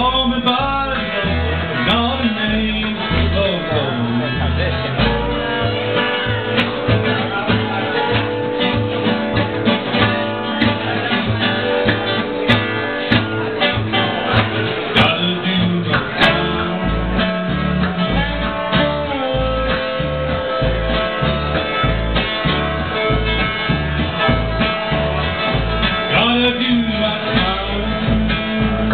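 Live acoustic string band playing: mandolin, upright double bass plucking a steady line of low notes, and strummed acoustic guitar, with singing at the start and again near the end.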